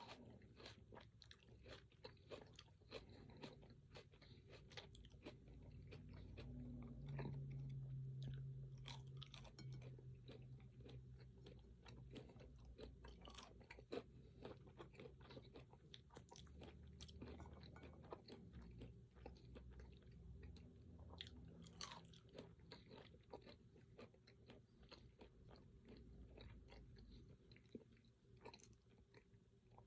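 A person chewing crunchy food close to the microphone, with many small crunches and wet mouth clicks coming rapidly and irregularly throughout.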